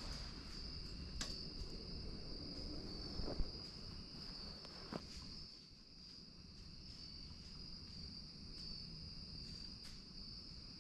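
Steady high-pitched chorus of night insects, with a few faint clicks and one soft knock about three seconds in.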